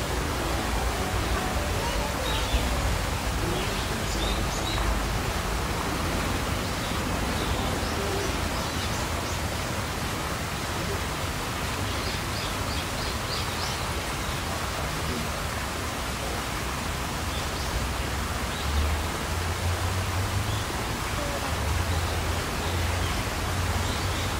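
Steady outdoor background noise with faint, indistinct voices now and then, and a low rumble that grows stronger late on.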